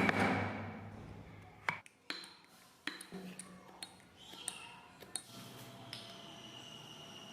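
A sharp knock that rings briefly, then scattered light clicks and taps as tools and small wooden pieces are handled during hand woodworking.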